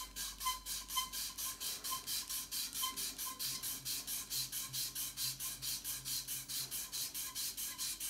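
Sandpaper rubbing by hand around a freshly installed pool cue tip and ferrule in quick, even back-and-forth strokes, about five a second, truing the tip's side flush with the ferrule.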